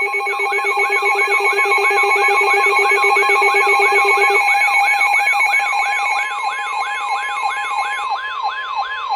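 Layered electronic alert alarms: a siren warbling rapidly up and down, nearly three times a second, over several steady alarm tones. A low tone drops out about four seconds in and more tones stop near eight seconds in. These are the alert tones that herald a severe thunderstorm warning broadcast.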